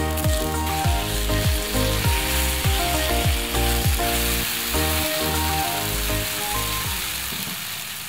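Apple and sweet potato pieces sizzling in a skillet over a campfire, a steady fine hiss. Background music with a steady beat plays over it and stops near the end.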